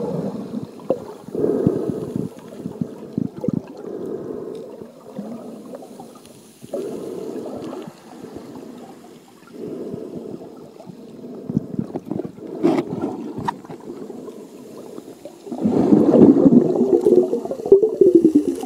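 Muffled underwater sound of water sloshing and gurgling against an iPhone's waterproof case, rising and falling in swells every second or two. A few sharp clicks come a little past the middle, and a louder stretch of bubbling gurgle comes near the end.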